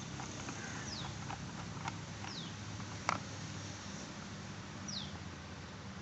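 A low steady hum with a few light clicks, one sharper about three seconds in, and three short high chirps that fall in pitch, like small bird calls.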